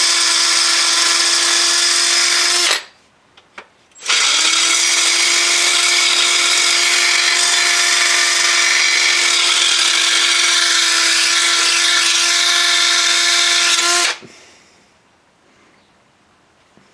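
Electric drill driving a blade-sharpening stone attachment, grinding along the cutting edge of a lawn mower blade: the motor runs at a steady pitch under a harsh grinding hiss for nearly three seconds, stops for about a second, then runs again for about ten seconds before stopping.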